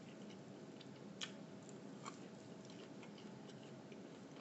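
Faint mouth sounds of someone chewing food, with a few soft clicks, the clearest about a second in and again about two seconds in.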